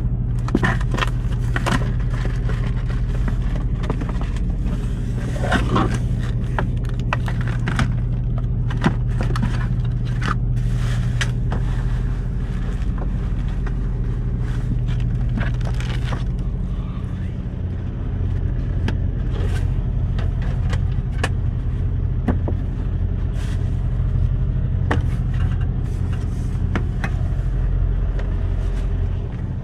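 Semi truck's diesel engine idling with a steady low hum. Over it come light rustles and knocks of things being handled in the cab.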